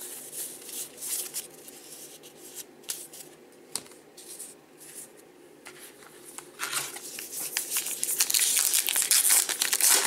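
Trading cards sliding and flicking against each other. From about six and a half seconds, a 2019 Topps Gypsy Queen foil pack wrapper crinkles loudly as it is handled and torn open.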